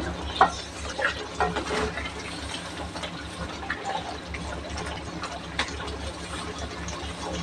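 A spoon stirring thick, wet crab masala gravy in an aluminium kadai: squelching liquid sounds with irregular scrapes and knocks of the spoon against the pan, over a steady low hum.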